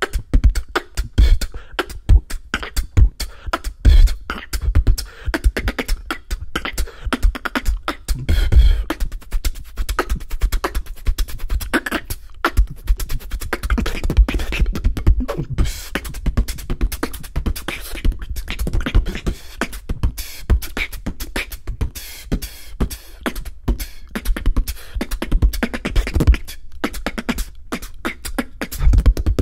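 Solo human beatboxing, performed close into a handheld microphone: a fast, unbroken routine of deep low hits and sharp clicks made with the mouth.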